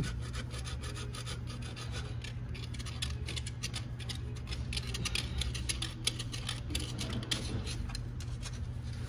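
Steel pick scraping and scratching hardened carbon deposits off the intake port walls of a GM direct-injection V8, in many quick, irregular strokes, over a steady low hum. The carbon is the heavy buildup on intake ports and valves that direct-injection engines suffer.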